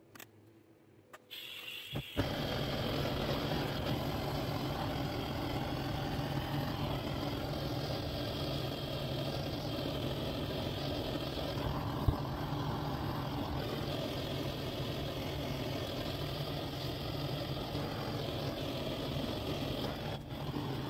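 Handheld gas blowtorch burning a steady flame against a pine bowl on a lathe. A hiss starts about a second in, and the flame catches with a pop about two seconds in and then runs steadily. One sharp click comes about halfway through.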